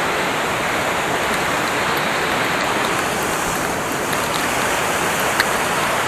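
Steady rushing of a waterfall in strong flow, an even wash of falling water, with a faint click about five and a half seconds in.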